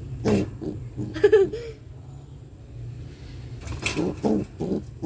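An angry pigeon brooding an egg gives short defensive calls and pecks at a finger poked through its cage bars. The calls come as a quick run of short pulses near the end.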